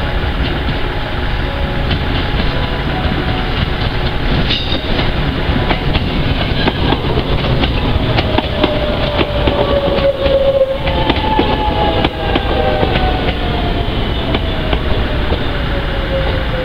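JR West 681 series electric train running past close by at low speed, its wheels clicking over rail joints, with a whine that falls slowly in pitch over the second half.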